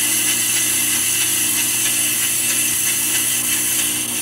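AMCO brake lathe with a power-feed upgrade making a fast rough cut on a spinning brake rotor: the cutting bits hiss and scrape steadily over the steady hum of the lathe's motor.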